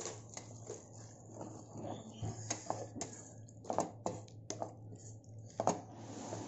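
Wooden spatula stirring curd into fried onions in a nonstick pan: irregular scrapes and taps of wood against the pan, with the loudest knocks a little before the middle and near the end.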